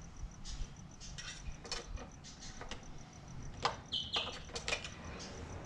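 Faint clicks and rustles of a lawn mower's oil dipstick being handled and wiped with a paper towel. An insect chirps rapidly and steadily under it, and a short bird chirp comes a little past halfway.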